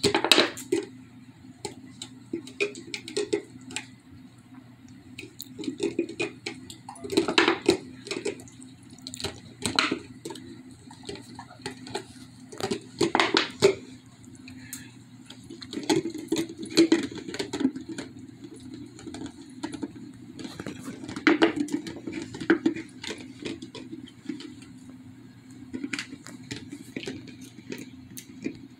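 German Shepherd licking and gnawing at an empty plastic peanut butter jar held under its paws: irregular clicks, knocks and crinkles of the plastic in uneven flurries.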